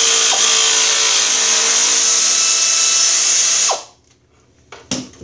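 Pneumatic air ratchet running loud and steady, spinning out a half-inch bolt while a wrench holds its nut, then stopping with a falling whine about three and a half seconds in. A couple of light metal clinks follow.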